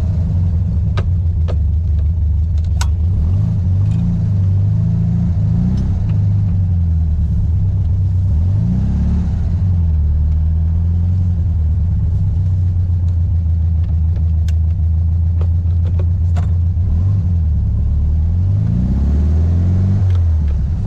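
A 1964 Volkswagen Beetle's air-cooled flat-four engine accelerating through the gears, its pitch climbing and dropping back at each shift, about three times. A few sharp clicks come in the first few seconds.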